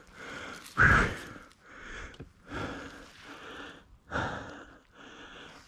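A man breathing hard, in and out about once a second, with the loudest gasp about a second in: heavy breathing from exhaustion.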